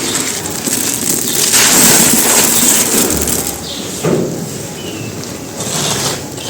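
Dry pure cement chunks being crushed and crumbled, a continuous gritty crunching that eases off a little after about three and a half seconds.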